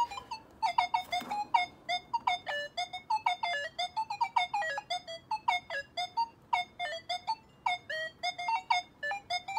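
Nokta Makro Legend metal detector sounding rapid short target tones as its search coil is swept back and forth over a quarter and a nickel lying almost touching. The beeps come several a second and shift between a higher and a lower pitch.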